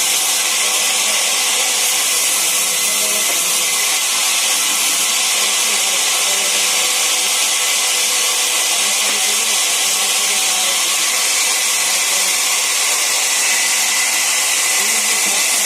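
Sawmill saw running steadily, a constant hissing noise with no breaks.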